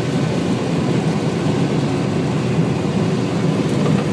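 Farm machinery engine running steadily at work in a corn field, with a faint steady whine over the engine noise.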